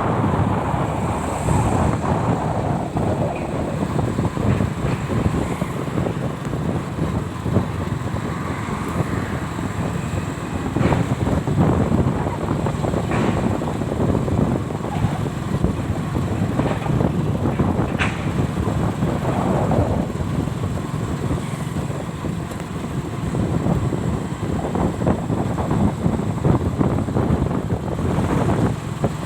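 A vehicle's engine running steadily as it travels, with wind buffeting the microphone and a few brief clicks or knocks.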